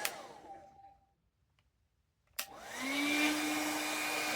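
Electric hair dryer clicked off, its fan motor winding down with a falling whine into silence; then a click about two and a half seconds in as it is switched back on, the motor spinning up with a rising whine and running steadily with its airflow rush.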